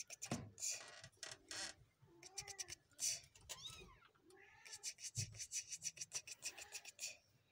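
Very young kittens mewing: a few short calls that rise and fall in pitch, among quick scratchy rustling.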